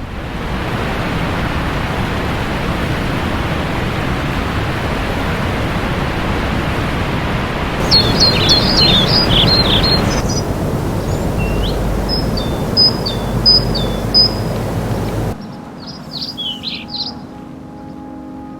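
Waterfall rushing in a steady, even roar of water noise, with songbirds chirping over it in short repeated phrases during the second half. Near the end the water sound cuts off abruptly, leaving a quieter background with a few more bird calls.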